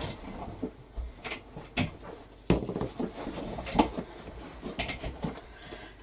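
Hands handling craft materials on a tabletop: scattered light knocks, taps and rustles, with the sharpest knock about two and a half seconds in.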